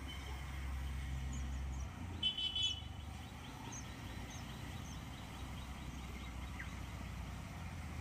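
Outdoor ambience: a steady low rumble with scattered small high chirps, and one short, loud, high-pitched honk-like call a little over two seconds in.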